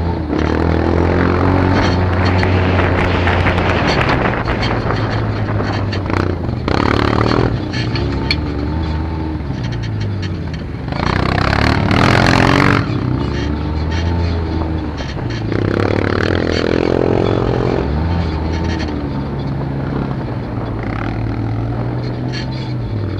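Onboard sound of a quad bike (ATV) ridden on a dirt track: its engine's revs rise and fall through the corners and straights, with two louder rushes of noise, about seven and twelve seconds in.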